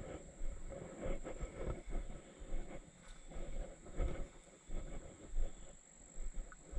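Hiker's footsteps on a dirt woodland trail, about one step every 0.7 s, with low thumps on the microphone.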